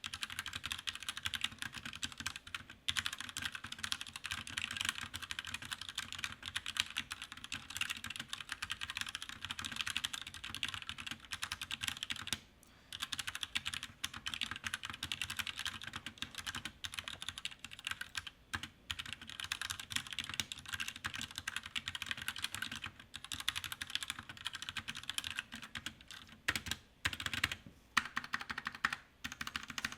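Fast continuous typing on an Akko 3061 Neon mechanical keyboard with Gateron Yellow linear switches: a dense run of key clacks with a few brief pauses, as a typing sound test.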